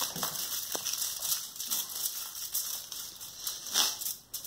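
Knife cutting and scraping through banana candy coated in crystal sugar, the sugar grains giving a gritty crackle with a few sharp ticks and a louder scrape near the end.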